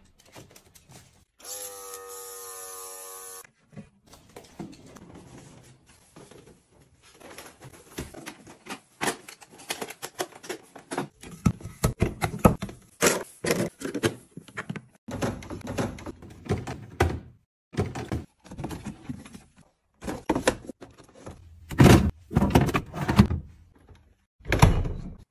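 A run of household handling sounds: many short knocks, clicks and thunks of objects being handled and set down. Near the start there is a steady tone lasting about two seconds.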